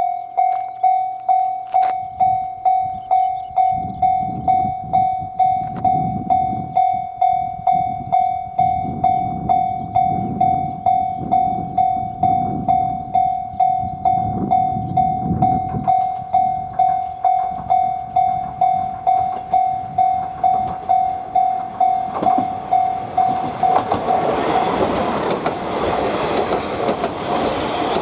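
Japanese level-crossing alarm ringing its electronic bell at about two strikes a second. A train rumbles through and then passes close and loud near the end, drowning the bell.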